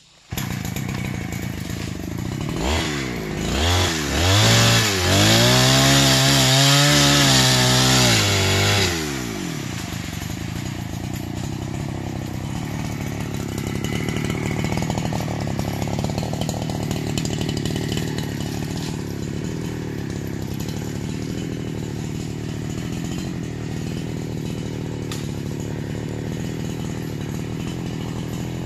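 A chainsaw engine revving up and down several times, held at high revs for a few seconds, then dropping back at about nine seconds to steady running.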